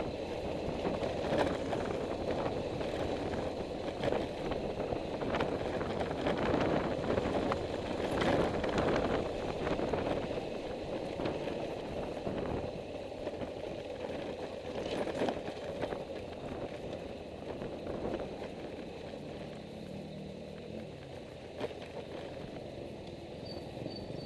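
Wind and road noise from a moving ride, with scattered knocks and rattles from the rough road surface, and a faint engine note near the end.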